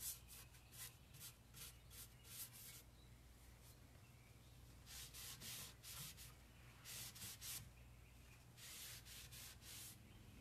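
Cloth rag rubbing dark furniture wax into the painted wood of a hutch: faint, quick scratchy strokes in several bursts with short pauses between.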